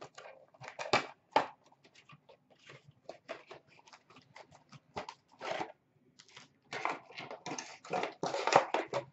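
Cardboard trading-card blaster box being torn open and its packs pulled out: irregular tearing, rustling and crinkling of cardboard and wrappers, with a denser, louder flurry near the end.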